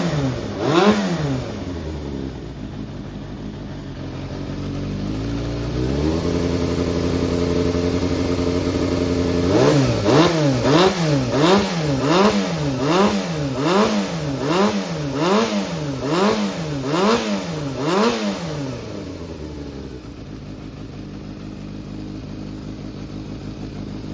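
Yamaha XJR400 inline-four engine revving: a couple of throttle blips, a dip to idle, a held higher speed, then about a dozen quick blips in a row before settling back to a steady idle near the end. The seller advertises it as running strongly, with no abnormal noise.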